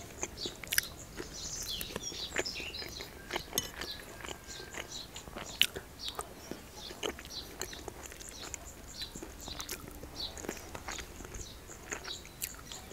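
Close-up chewing and mouth sounds of someone eating dolma, with many small sharp clicks and smacks. Birds chirp faintly in the background.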